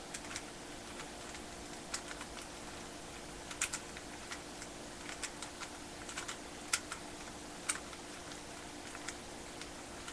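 Plastic clicks of a Rubik's cube's layers being turned by hand, running through a move sequence to fix the last-layer corners. The clicks come irregularly, a few louder snaps among them, the loudest about two thirds of the way through.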